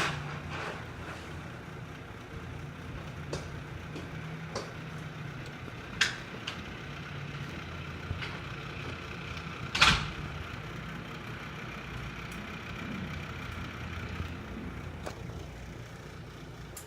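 Distant piston-engine aircraft, a steady low drone rising a little in the later part. Several short sharp knocks land over it, the loudest about ten seconds in.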